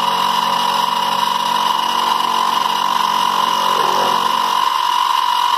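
Benchtop milling machine running with a steady high whine as its end mill cuts into a model locomotive's metal frame, the table fed by hand. A lower hum under it drops away about four and a half seconds in.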